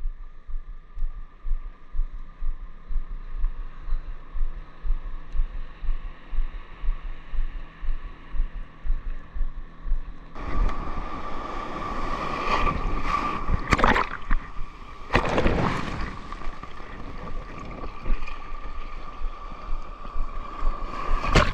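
Sea water sloshing and splashing around a wading angler's legs in shallow surf. Through the first half it is muffled, with a regular pulse about twice a second; from about halfway a louder rush of water takes over, with two big splashes.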